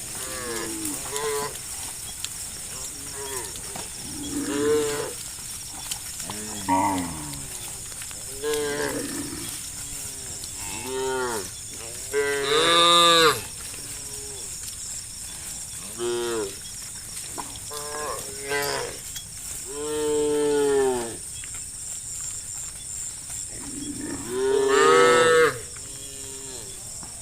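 A herd of cows mooing, many calls one after another with some overlapping, the loudest about twelve seconds in and near the end.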